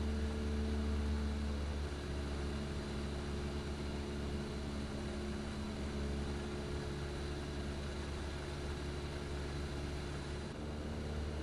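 Cessna 172's piston engine and propeller droning steadily, heard inside the cabin, dipping slightly in level about two seconds in.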